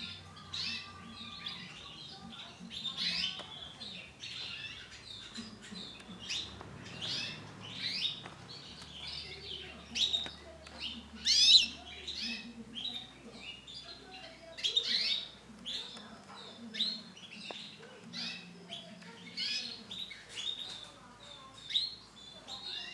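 Female canary chirping: short, high calls repeated every half second to a second, with a louder sweeping call about eleven seconds in.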